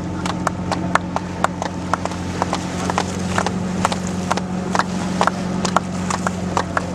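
A boat's engine running steadily with a low hum. Over it come frequent irregular sharp clicks or knocks, several a second.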